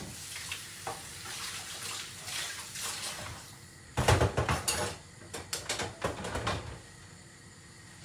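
Kitchen clatter of metal pots and utensils: scattered clinks and rustling for the first few seconds, a loud clatter about four seconds in, then a quick run of clinks.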